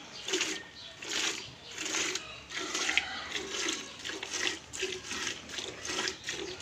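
A cow being milked by hand: rhythmic hissing squirts of milk streaming into a vessel, about two squirts a second.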